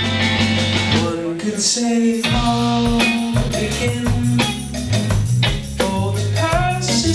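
A live band playing: bass and drums with percussion hits under pitched melody lines. The bass drops out briefly about two seconds in, then comes back.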